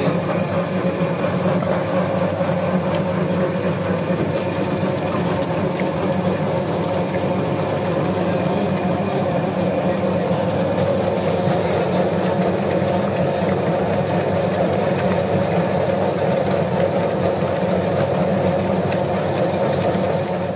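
Large electric planetary mixer running steadily, its wire whisk spinning through a bowl of beaten eggs; a constant motor hum and whirr.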